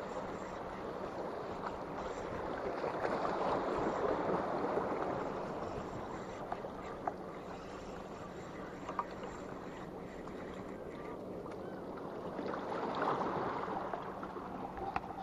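Sea ambience: a washing noise of water and wind that swells twice, over a faint steady low hum, with a few light clicks.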